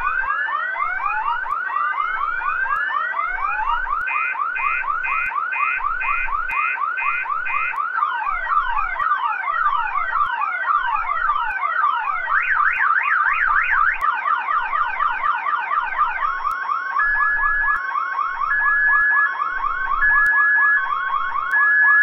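Electronic multi-tone alarm siren, sounding as the fire alarm that has just been pulled. It cycles through patterns: repeated rising whoops, a run of about two pulsing beeps a second, falling sweeps, a fast warble, then alternating two-tone beeps.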